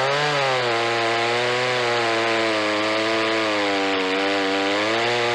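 Scheppach 56cc two-stroke petrol chainsaw at full throttle, cutting through a large hardwood log. Its engine note climbs briefly at the start, then holds steady under load with slight wavering, over the hiss of the chain chewing through the wood.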